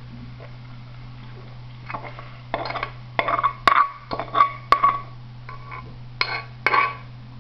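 Penne being scraped out of a nonstick pot onto a plate with a spatula: irregular scrapes and sharp clinks of the spatula and pot rim against the plate, starting about two seconds in, over a steady low hum.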